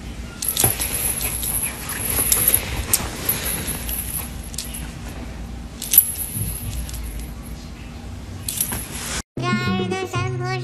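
Small metal bell jingling in short bursts as a feather cat-teaser toy is shaken and swung, with light clicks and rustles. About nine seconds in, it cuts off and a children's song with singing begins.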